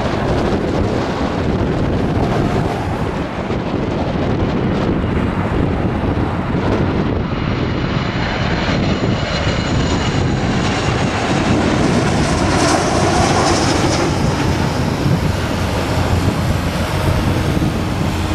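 Jet airliner landing: a steady engine rush, joined about seven seconds in by a high fan whine that grows loudest around two-thirds of the way through.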